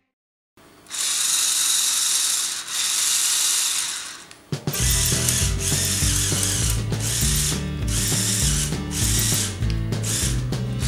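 Electric motors driving the plastic Technic gear train of a Lepin 20056 6x6 tow truck model, a steady high whir with clicking gears, starting about a second in. Near the middle it stops briefly, then starts again with a faster, rhythmic clicking.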